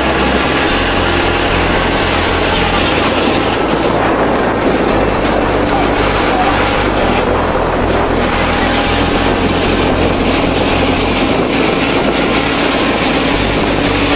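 Fishing vessel's engine and deck machinery running steadily, a loud continuous hum and rush with no breaks.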